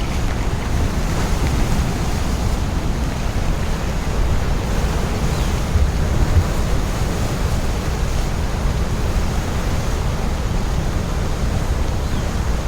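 Steady, loud rush of floodwater, a continuous roar of fast-flowing river water with a deep low rumble underneath.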